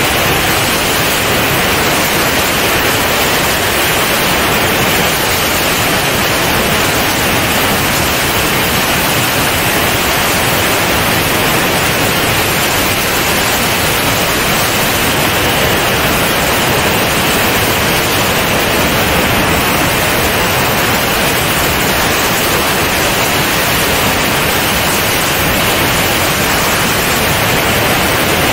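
Steady, loud rush of airflow over the microphone of a camera mounted outside a C42 ultralight in flight, with no distinct engine tone standing out.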